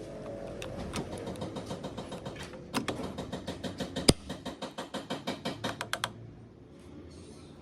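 A rapid, even run of sharp mechanical clicks, about seven a second, with one louder click in the middle. It stops suddenly after about three seconds. Softer, scattered ticks come before it.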